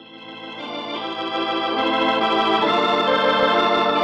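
Organ music swelling in from quiet and holding sustained chords with a wavering shimmer: a radio-drama bridge marking a change of scene.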